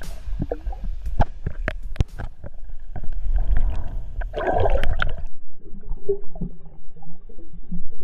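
Bubbling and gurgling water heard underwater through a waterproof action-camera housing: a muffled low rumble with many sharp clicks, surging loudest about four and a half seconds in, then going quieter.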